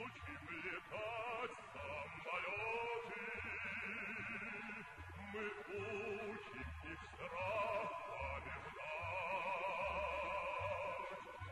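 Background music: a melody with strong vibrato over a steady bass beat.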